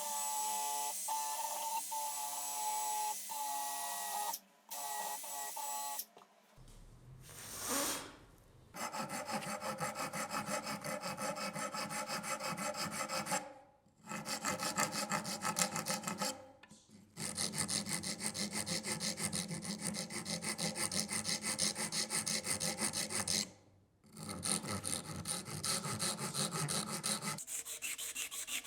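A small power tool whines steadily for the first few seconds. After a few short cuts, abrasive rasping on a steel knife blade runs on, fast and steady, with brief breaks: the blade is being sanded or filed to strip the rust.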